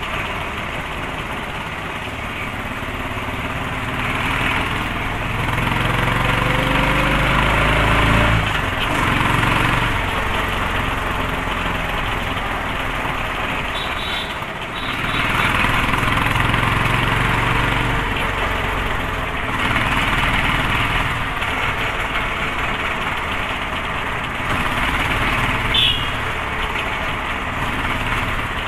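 Royal Enfield Thunderbird's single-cylinder engine running under way, mixed with wind and road noise; its pitch rises for a few seconds about five seconds in, then falls away, and the sound swells and eases several times with the throttle. A short high-pitched chirp near the end.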